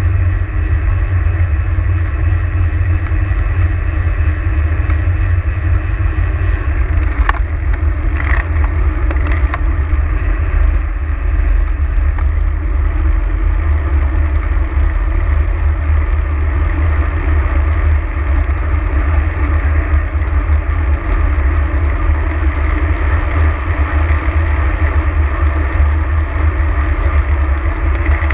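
Steady wind noise on the microphone of a GoPro camera mounted on a road bike while riding: a loud low rumble with a hiss above it.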